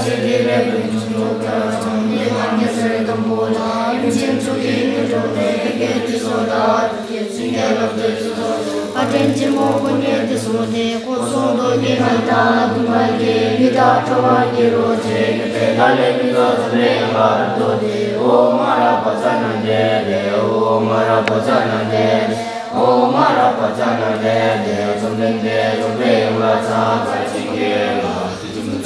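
A group of young novice monks chanting Buddhist prayers together, a steady, droning recitation with no pauses.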